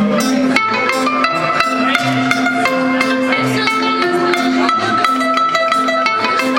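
Band playing an instrumental passage: plucked guitar notes held over a steady percussive beat.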